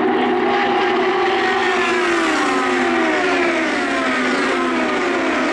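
IndyCars' turbocharged V6 engines at racing speed as a group of cars goes by, several engine notes overlapping and each falling in pitch as the cars pass.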